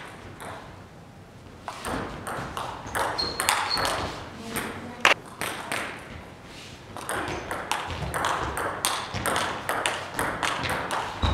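Table tennis ball being struck back and forth, sharp clicks of the ball on the bats and bouncing on the table in quick rallies, with one sharper crack about five seconds in.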